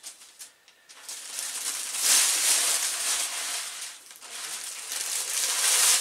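Clear plastic shipping bag rustling and crinkling as it is pulled off a PC tower case, in two spells: about two seconds in, and again near the end.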